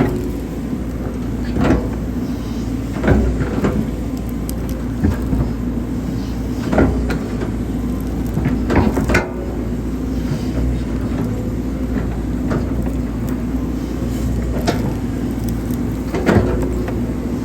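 Hydraulic excavator's diesel engine running steadily while digging, with a sharp knock every couple of seconds or so from the working machine.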